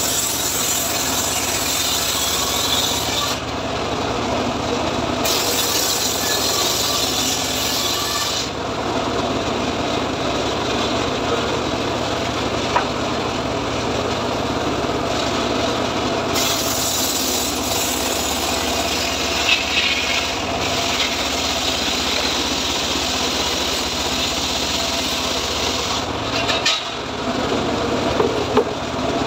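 Homemade engine-driven circular saw bench ripping a teak log into planks. The blade's hiss of cutting wood comes and goes several times over the engine's steady running as the pieces are pushed through.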